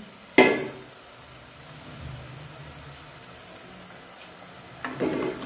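Spiced masala sizzling steadily in oil in a steel kadai, with one sharp metal clank about half a second in. Near the end comes louder scraping and clatter as cubes of peeled banda root slide off a steel plate into the pan.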